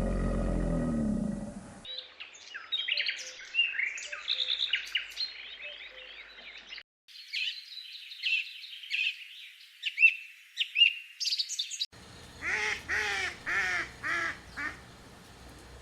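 Birds singing and chirping in quick, high, twittering phrases, in two separate stretches, then about five repeated calls in a row near the end. The tail of an animal roar fades out in the first two seconds.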